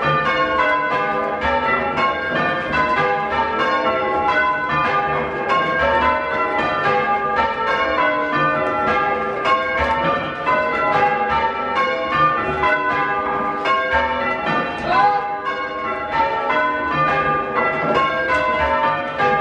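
Six-bell ring of church bells, tenor about 8¾ cwt tuned to G, rung full-circle in change ringing by hand on ropes. The bells strike in a steady, unbroken stream, heard from the ringing room beneath them.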